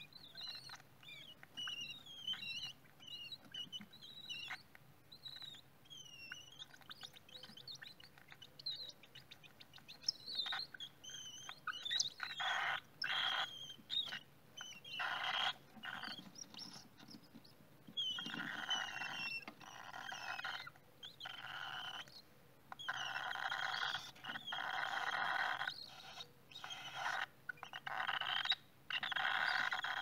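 Cockatiel chicks in the nest box calling: short squeaky chirps at first, then from about twelve seconds in, raspy, buzzing bursts of about a second each, repeated with short gaps and getting louder toward the end, the hoarse begging calls of cockatiel nestlings.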